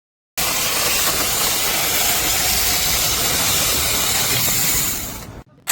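Angseen 6-inch cordless brushless mini chainsaw running, a loud steady hiss-like noise that starts suddenly, falls away after about five seconds, and is followed by a short burst at the very end.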